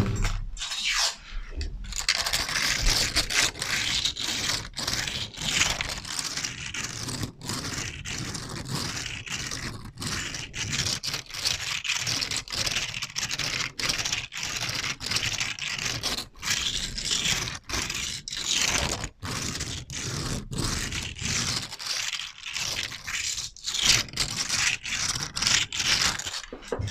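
Continuous rough scraping and scratching, broken by many very brief gaps: an ASMR trigger sound.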